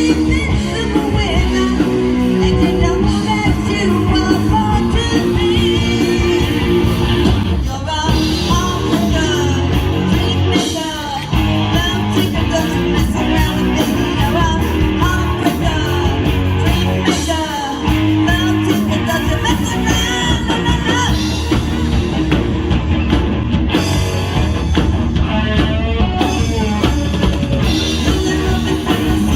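Live rock band playing a song with drum kit and guitar, steady and loud throughout.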